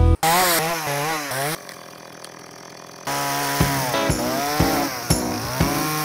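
Two-stroke chainsaw cutting wood, its engine revving up and down in repeated swells. It drops quieter for about a second and a half in the middle, then comes back at a steady level.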